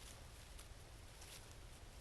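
Near silence: a steady low rumble and faint hiss, with a few faint, brief rustles.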